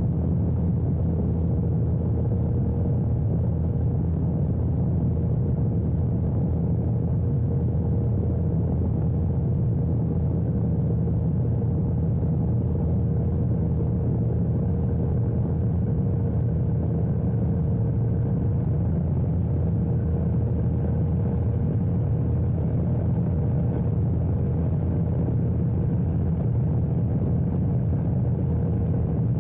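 Badland F3 ultralight aircraft in level flight: its engine and propeller drone steadily as a low rumble, with a thin, steady whine above it.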